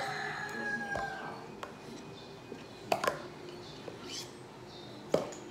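Hard plastic sport-stacking cups knocking against each other and the stacking mat in a few separate clacks, the clearest about three and five seconds in, as cups are lifted and set down. A faint high held tone sounds through the first second.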